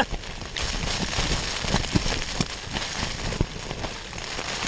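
Torrential rain pelting the fabric of a Vango Storm Shelter 400, heard from inside: a steady hiss of many small taps.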